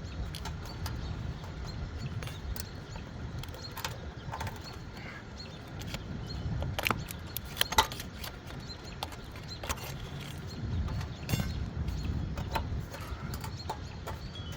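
Scattered clicks, taps and light knocks of hand work, with a few sharper knocks a little before the middle, over a steady low rumble.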